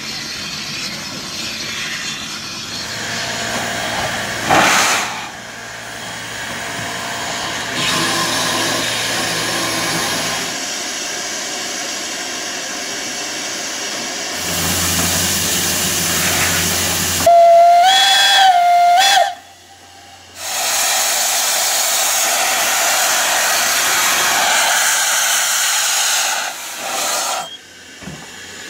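A steam locomotive's whistle sounds once for about two seconds, then a steady loud hiss of steam blowing out around the cylinders of the Furka-Oberalp HG 3/4 No. 4 rack steam locomotive. Before the whistle there is quieter steady steam hiss and running noise from the train.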